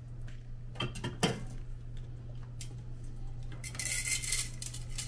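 Metal utensils clinking against pots and dishes while cooking: a few sharp clinks about a second in, then a short hiss near four seconds, over a steady low hum.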